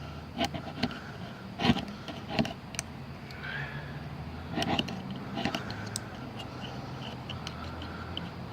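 Irregular short scrapes and knocks of a small Leatherman Style CS multitool dragged against a ferro rod, struck in uneven clusters near the start and again about halfway through, over a steady low hum.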